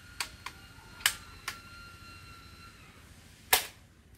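Black-and-yellow toy pistol shooting: about five sharp snaps at uneven intervals, the loudest near the end.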